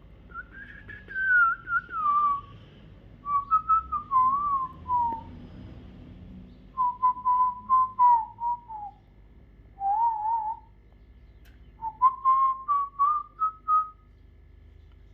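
Parrot whistling a tune in five short warbling phrases. Most of the phrases drift downward in pitch, and the last one climbs in small steps.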